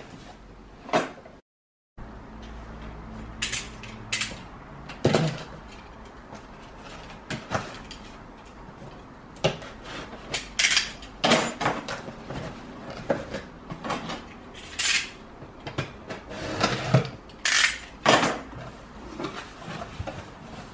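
A cardboard box being cut and opened by hand. A box cutter slices through the packing tape and the cardboard flaps are pulled open, with scattered sharp knocks, scrapes and rustles of handling.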